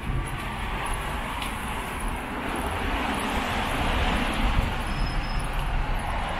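Road traffic passing on the bridge deck beside the walkway: a vehicle's tyre and engine noise swells to its loudest about halfway through and then eases off, over a steady low rumble.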